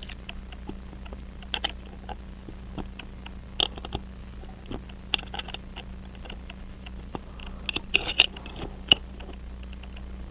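Irregular small clicks and light taps of a pocket watch and its case being handled on a workbench, heaviest in a cluster about eight seconds in, over a faint steady hum.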